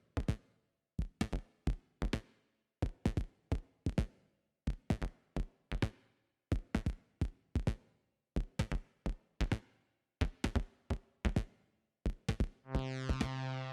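Synthesized percussion hits from the Surge software synthesizer, short sharp strikes repeating in a looped pattern of small groups. Near the end a sustained pitched synth tone with a rich stack of overtones comes in under the hits.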